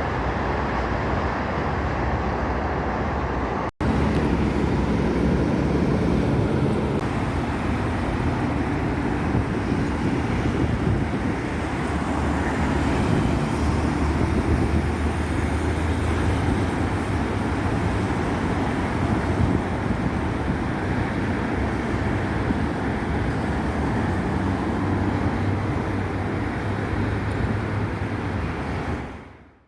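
Steady road traffic noise from highway vehicles passing, broken by a split-second dropout about four seconds in and fading out near the end.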